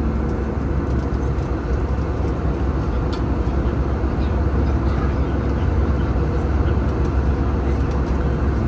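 Airliner cabin noise in flight: a steady low drone of engines and airflow heard from inside the cabin.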